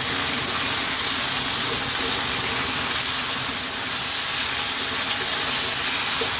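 Fried fish pieces and vegetables in oyster and soy sauce sizzling in a wok on high heat: a steady, even sizzle that doesn't change.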